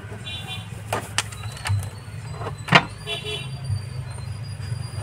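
Pliers clicking sharply a few times as they strip the insulation from an electric iron's indicator wire, the loudest click a little past the middle, over a steady low rumble. Two brief high chirps come in near the start and again after the loudest click.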